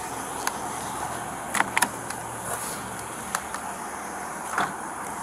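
Steady low hum of an idling car, with a few short sharp clicks and knocks, two close together about a second and a half in.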